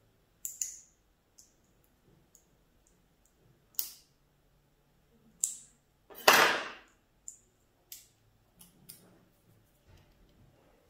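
Sparse small clicks and ticks of hands handling small objects, with one louder brief scuffing noise about six seconds in.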